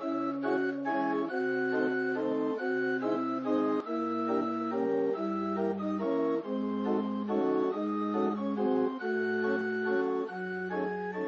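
Intro music played on an organ: sustained chords over a bass line, the chords changing every half second or so.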